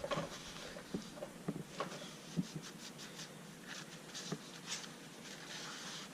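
Faint rubbing with scattered light clicks and taps as the oil filter housing from a Kawasaki KLX110 is wiped clean by hand.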